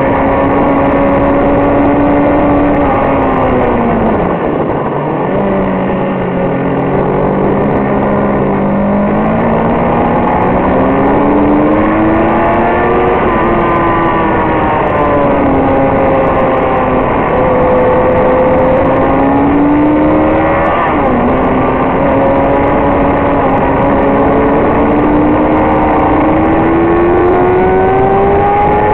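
Sport motorcycle engine at speed, heard from the rider's position, with heavy wind noise. The revs fall about four seconds in, climb again, dip, drop sharply around twenty seconds in, then rise steadily near the end, as the bike brakes, shifts and accelerates out of corners.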